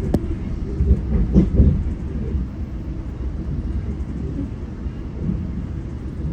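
GO Transit commuter train running along the track: a steady low rumble with a sharp click just after the start and a few heavier knocks about a second and a half in.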